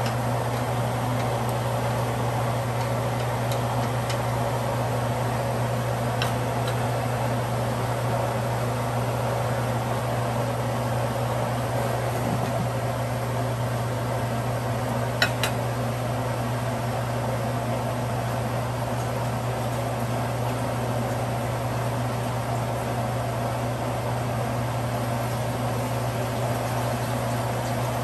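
Steady hum of a fan motor with a low drone. About fifteen seconds in, a glass pot lid is set on a steel pot with a sharp clink.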